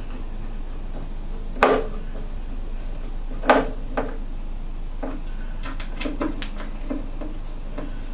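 Hand tools and hardware knocking and clicking against a wooden speaker mounting: two sharp knocks about two seconds apart, then a run of light clicks, over a steady low hum.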